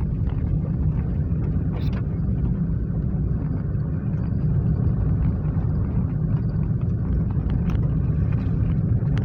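Steady low rumble of a car being driven, road and engine noise with a few faint clicks and rattles.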